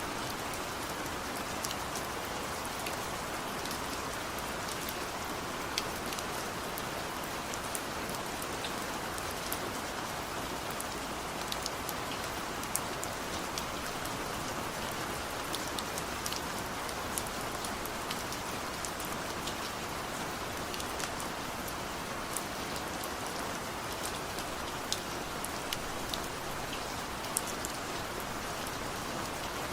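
Steady rain falling, an even hiss with scattered sharper taps of individual drops.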